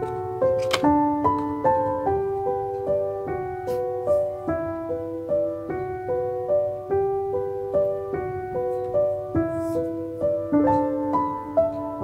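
Background piano music: a gentle melody of evenly paced notes, about two a second.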